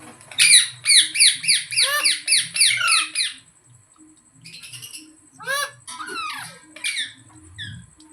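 Green parrot squawking: a fast string of harsh, falling screeches, about four or five a second, for some three seconds, then after a short pause a few more scattered calls.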